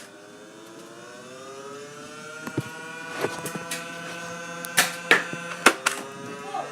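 A small electric motor whirring; its pitch rises slowly over the first few seconds and then holds steady. Several sharp clicks and knocks come in the second half.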